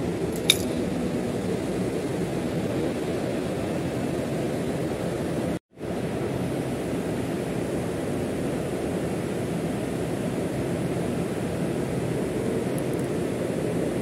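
Steady low drone of running plant machinery in an industrial chiller room. About half a second in, a single sharp metallic clink from a steel spanner. The sound cuts out for a moment about halfway through.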